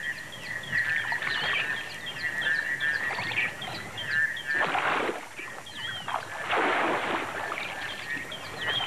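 Wild birds chirping over a steady high trill, with two water splashes from a spotted hyena wading and nosing in the water, about halfway through and again a second and a half later.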